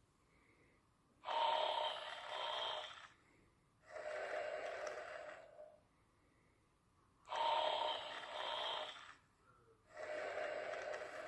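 Slow, even snoring during sleep: two breathing cycles, each a louder snore followed after a short pause by a softer one, with quiet gaps between.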